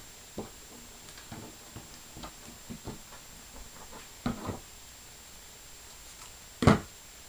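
Small pieces of paper being folded and creased by hand on a hard plastic surface: scattered light taps, clicks and rustles. A louder cluster of clicks comes about four seconds in, and a single sharp knock, the loudest sound, comes near the end.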